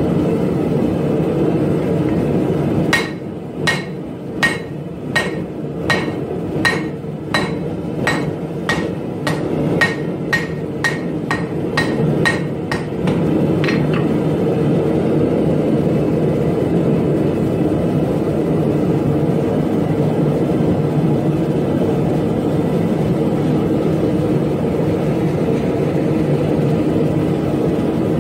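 Hand hammer striking a red-hot steel blade billet (1084 and 15N20 laminate) on an anvil: about twenty ringing blows that quicken as they go, stopping about fourteen seconds in. Under it the steady roar of a gas forge's burner.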